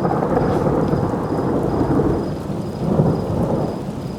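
Thunder rumbling heavily from a nearby lightning strike, rolling in waves with a second swell about three seconds in, over the hiss of rain starting to fall.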